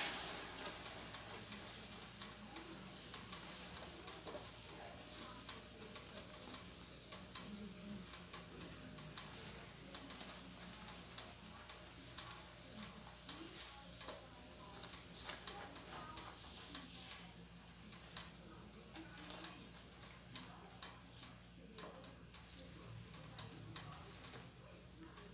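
Caramel syrup of melted sugar thinned with water, bubbling faintly in a stainless steel saucepan while a silicone spatula stirs and scrapes through it, with many small ticks and crackles.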